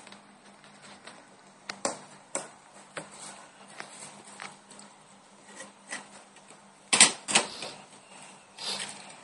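A phone's retail box and the SIM card carrier on it handled by hand: scattered taps, clicks and light knocks, loudest a quick pair of knocks about seven seconds in, then a short rustle near the end.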